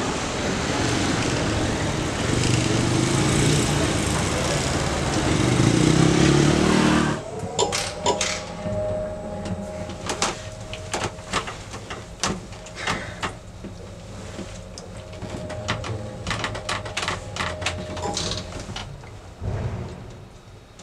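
City street traffic noise that cuts off abruptly about seven seconds in, giving way to a quieter interior with scattered clicks and knocks over a steady tone.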